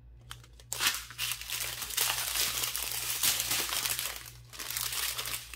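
Thin plastic zip bags of diamond-painting drills crinkling as they are handled and shuffled, starting about a second in and easing off near the end.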